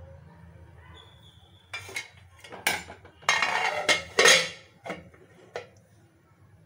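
Metal cookware clattering and clinking as a pan lid is picked up and handled on the stove: a run of sharp knocks and scrapes, loudest in the middle, dying away near the end.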